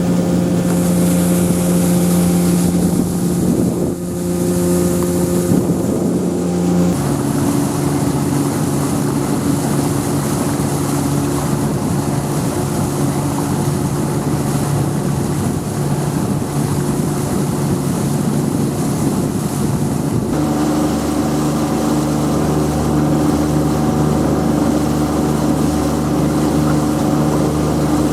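A boat's outboard motor running steadily under way, with wind on the microphone. Its pitch steps down abruptly about seven seconds in and changes again about twenty seconds in.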